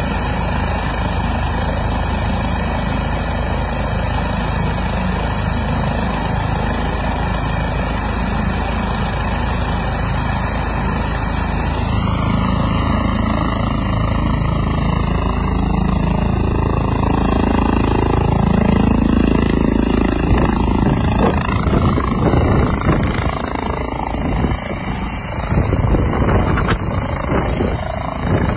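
Eurocopter EC135 air-ambulance helicopter's turbines and rotor running on the ground. About twelve seconds in the pitch rises and it grows louder as it spools up. Near the end, gusts of rotor wash buffet the microphone.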